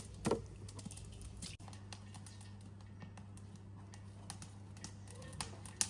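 Scattered light clicks and knocks of handling, the loudest just after the start and near the end, over a steady low hum.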